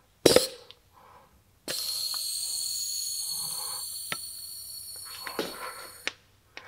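A sharp click, then compressed air hissing steadily for about four seconds with a thin whistle through a pneumatic CV boot expanding tool as its fingers stretch the new rubber boot. The hiss cuts off suddenly near the end.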